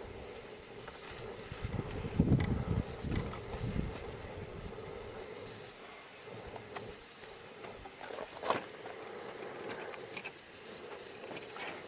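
Wind buffeting the microphone in gusts about two to four seconds in, over a faint steady hum. A few light clicks and knocks from handling things at a portable gas camping stove, the clearest one about eight and a half seconds in.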